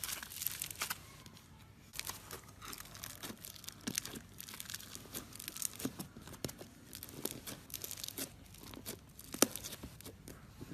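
Slime being squished and pulled by hand: a run of irregular sticky crackles and pops, briefly sparser about a second in.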